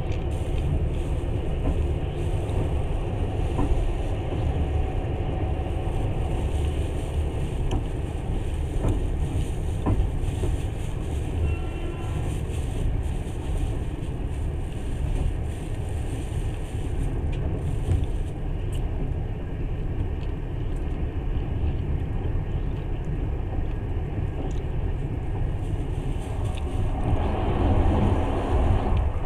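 Passenger train running at speed, heard from inside the carriage: a steady rumble of the wheels on the rails, with a few faint clicks, swelling louder near the end.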